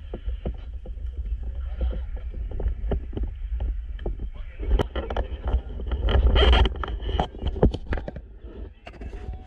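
Wind buffeting and handling noise on a body-worn camera's microphone: a steady low rumble with scattered clicks and knocks, and a louder rustling stretch about six seconds in.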